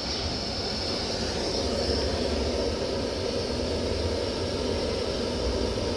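Steady rushing noise of a gas stove burner heating a pot of simmering Thums Up cola.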